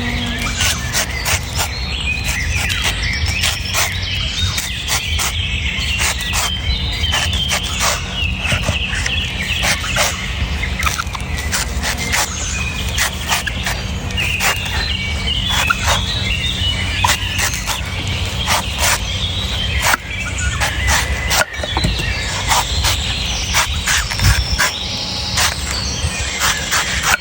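Knife chopping into coconuts: a run of irregular sharp knocks, several a second, with birds chirping in the background.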